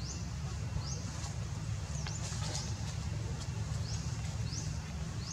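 Short, high-pitched rising squeaks or chirps, one every second or so, over a steady low rumble.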